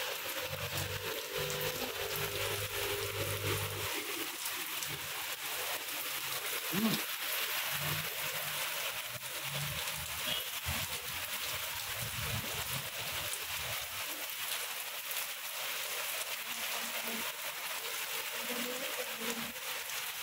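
Steady heavy rain falling on leafy trees and paved ground, an even hiss. A low hum sits underneath it for the first few seconds.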